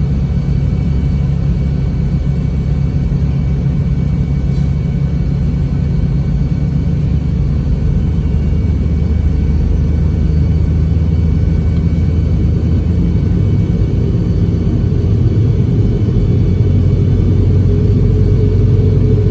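Steady low rumble inside the cabin of a Boeing 717 during pushback and engine start, with faint steady whines above it. It grows slightly louder, and a new low hum comes in near the end.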